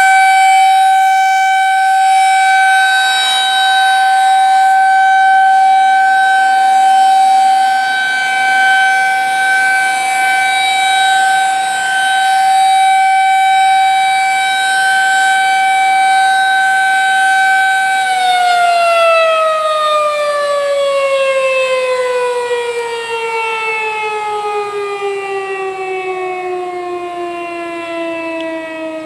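Federal Signal 2001-SRNB electromechanical warning siren sounding a loud, steady single tone on test. About two-thirds of the way through it winds down, its pitch falling slowly and smoothly as it coasts toward a stop.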